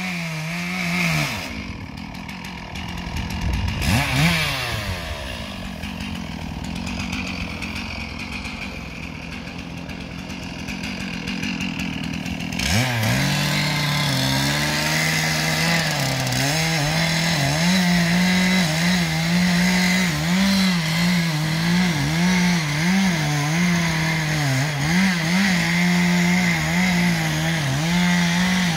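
Two-stroke chainsaw running at lower speed for about the first twelve seconds, with a brief rev about four seconds in. It then goes to full throttle cutting into a pine trunk, its pitch dipping and recovering again and again as the chain loads up in the wood.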